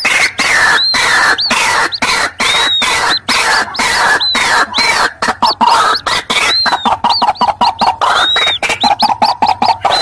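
White-breasted waterhen lure call: a dense, continuous chorus of rapid, raucous adult notes mixed with high, thin arched peeps of chicks, repeating about every half second.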